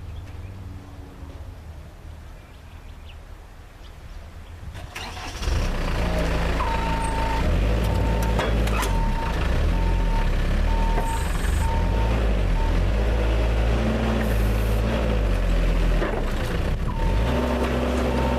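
Forklift engine ticking over quietly, then revving up hard about five seconds in and working under load, its pitch shifting as it lifts. A regular beep, typical of a reversing alarm, repeats through the middle and starts again near the end.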